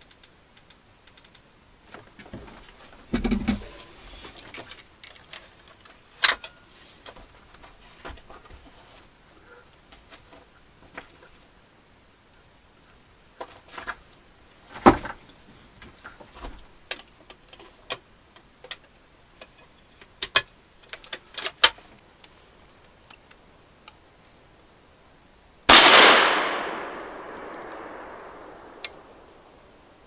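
Scattered clicks and knocks of a gun and gear being handled, then about 26 seconds in a single loud gunshot that echoes away over about three seconds.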